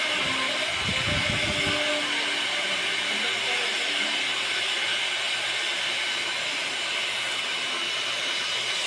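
Handheld hair dryer blowing steadily: a constant rushing hiss with a thin, steady high whine in it.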